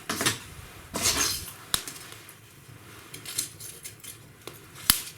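Kindling of thin wood chips burning in a freshly lit fireplace, crackling with irregular sharp snaps and pops, the loudest one near the end, and a short hissing rush in the first second or so.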